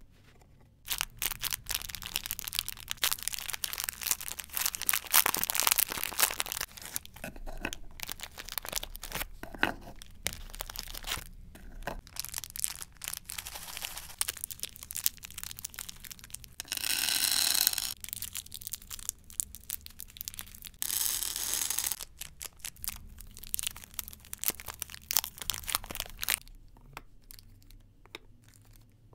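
Plastic and foil candy wrappers crinkling and tearing as packaged sweets are opened by hand and set into a wooden platter, with many small clicks and rustles. Two longer, steadier rustling stretches come about 17 and 21 seconds in.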